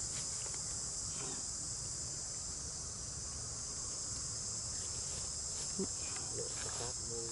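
Steady, high-pitched chorus of insects, a continuous shrill buzz with no pause.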